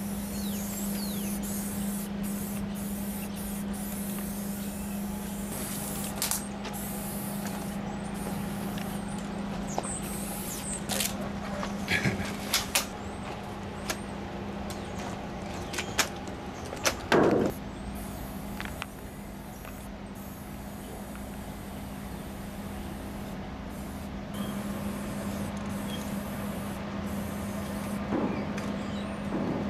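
Aerosol spray paint cans hissing in short bursts, with a few sharp knocks, the loudest about seventeen seconds in, over a steady low hum.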